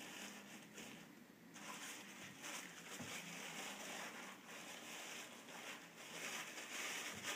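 Faint rustling and crinkling of acid-free tissue paper as it is crumpled and pushed into the gaps of a plastic packing box.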